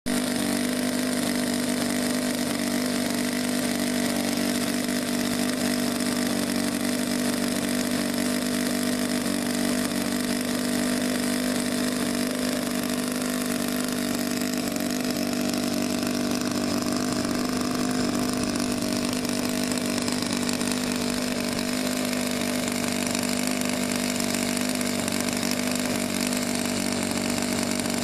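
Saito 91 FS four-stroke glow engine, rebuilt with a Bowman piston ring, running in an RC P-51 Mustang model. It holds a steady speed without revving up or down, showing the freshly overhauled engine running properly again.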